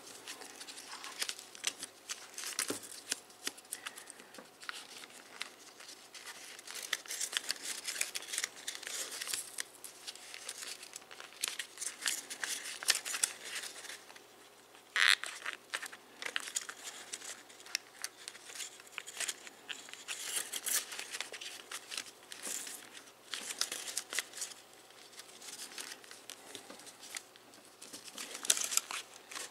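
A sheet of origami paper being folded and creased by hand, giving an irregular crinkling and rustling of paper, with one sharper crackle about halfway through.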